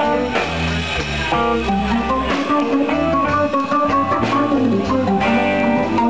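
Live blues band playing, with electric guitar, keyboard and electric bass over a moving bass line.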